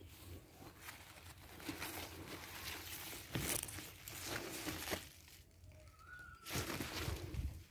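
Rustling and crinkling of fluted pumpkin (ugu) leaves and vines as a hand pushes through the foliage, with irregular crackles and a short quieter spell about two-thirds through.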